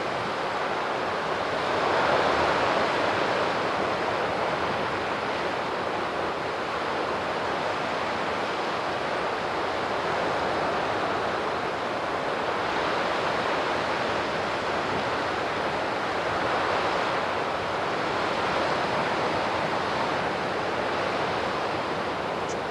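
Sea surf washing against the shore: a continuous rushing wash that swells and eases, with the biggest surge about two seconds in.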